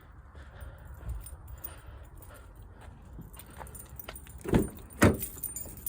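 Keys jangling on a car key fob, then two loud clunks about half a second apart near the end as the car door is unlatched and opened.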